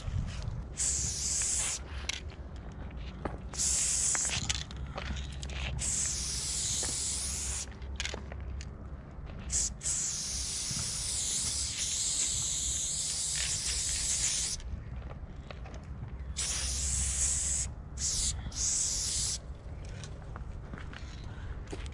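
Aerosol spray-paint can spraying in repeated bursts: short hisses and longer sprays of several seconds, separated by brief pauses as the nozzle is released.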